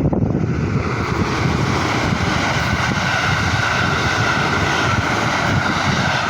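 A train passing over a level crossing: a loud, steady rush of wheels on the rails that starts abruptly and drowns out the crossing bells.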